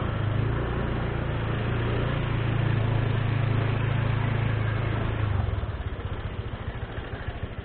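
Motorcycle engine running steadily while ridden over a dirt lane, then easing off about five seconds in to a lower, pulsing beat.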